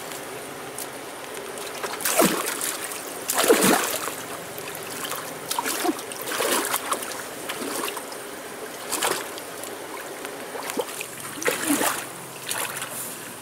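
Water splashing and sloshing in irregular bursts as hands grope for fish under the surface of a shallow muddy pool.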